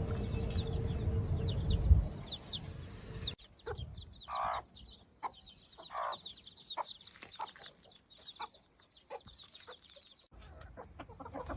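Chickens clucking while chicks peep constantly in short, high, falling chirps. A low rumble with a single bump runs under the first few seconds and then drops away.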